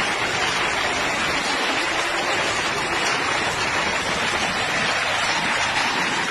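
Torrential rain pouring down, a dense, steady hiss that holds at one level throughout.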